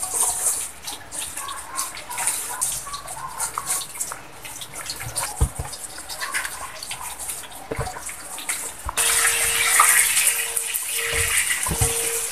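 Hands mixing and kneading crumbly egg-noodle dough in a stainless steel bowl: a scratchy, rustling scraping with scattered light knocks against the metal. About nine seconds in, a louder steady hiss comes in, with a faint flat tone that breaks off several times.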